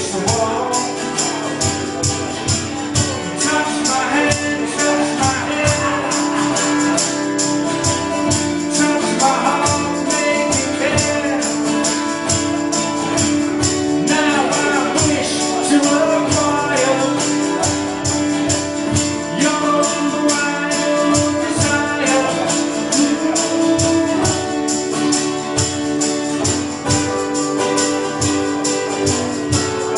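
A live band playing: drums keep a steady beat with bright cymbal hits, under sustained chords, with a singer's voice rising and falling over it at times.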